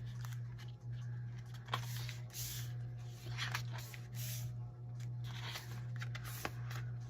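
Paper rustling as the glossy pages of an album photo book are turned and handled, in a series of short rustles over a steady low hum.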